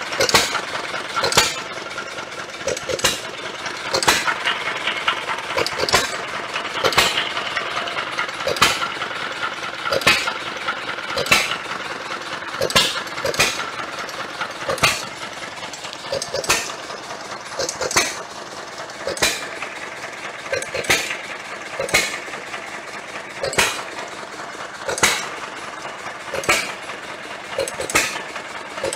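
John Deere 1-1/2 HP Model E hit-and-miss gas engine running, firing with a sharp bang roughly once a second at uneven intervals while its flywheels carry it between firings, with steady mechanical running noise in between.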